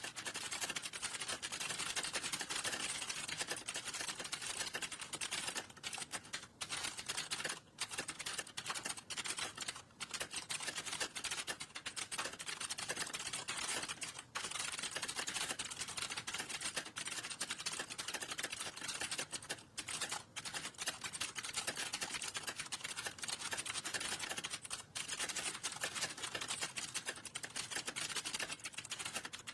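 Fast, continuous typing on a computer keyboard: a dense run of key clicks with a few brief pauses.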